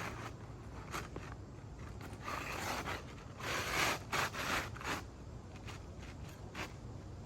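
Asphalt shingle being slid into place under the course above, scraping against the neighbouring shingles in several short gritty strokes, loudest from about three and a half to five seconds in.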